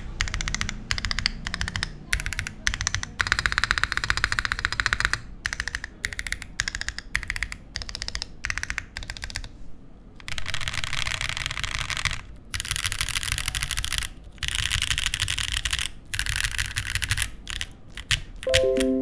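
Typing on a RAMA Works Thermal mechanical keyboard with stock Aflion Runner switches, a polished aluminium beam plate, a leaf-spring mount and GMK keycaps: rapid runs of keystrokes in bursts separated by short pauses. Music comes in near the end.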